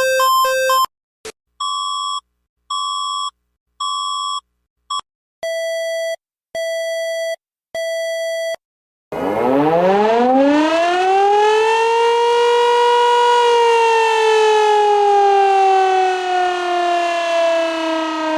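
A string of electronic emergency-alert tones: the tail of a pulsing two-pitch beep, a run of short beeps, then three lower beeps. Then a civil defense siren winds up, rising in pitch for about three seconds, holds briefly, and slowly falls.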